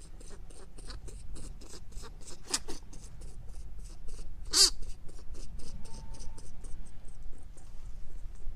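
A quick run of dry, scratchy clicks that fades out near the end, with one louder sharp click a little past halfway.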